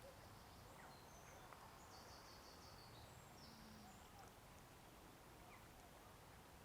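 Near silence: a faint, even outdoor background with a few faint high chirps, including a short run of quick repeated notes about two seconds in.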